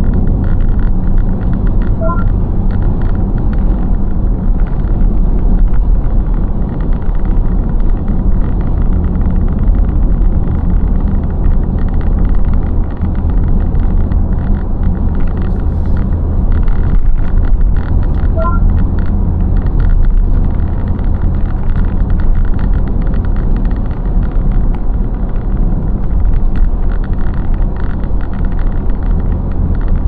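Steady low rumble of a car driving at speed, engine and road noise heard from inside the cabin. A brief electronic chime sounds twice, about two seconds in and again near eighteen seconds.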